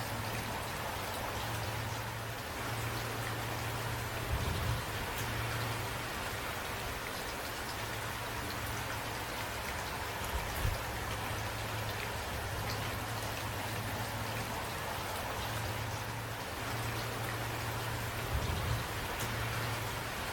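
Steady rain falling, with scattered drops pattering. Under it runs a low rumble that comes and goes, and there are three brief low thumps.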